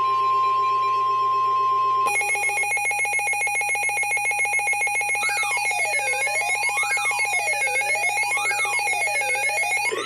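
A Midland NOAA weather alert radio sounding an alert for a severe thunderstorm warning. First a single steady tone, the weather radio warning alarm tone, holds for about two seconds. Then the receiver's own alarm takes over: a fast pulsing tone, joined about five seconds in by a siren-like tone sweeping up and down about every second and a half.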